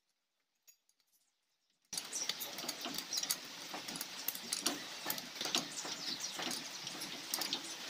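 Ring spanner working the crown-gear bolts on a Mahindra pickup front differential case: rapid, irregular metallic clicks and clinks over a steady hiss, starting suddenly about two seconds in.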